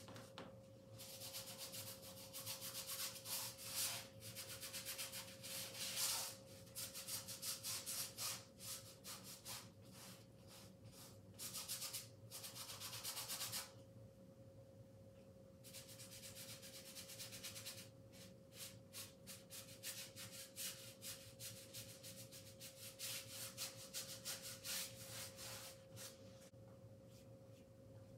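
A paintbrush scrubbing paint onto a large canvas in quick back-and-forth strokes. It comes in two long spells with a pause of about two seconds in the middle. A faint steady hum runs underneath.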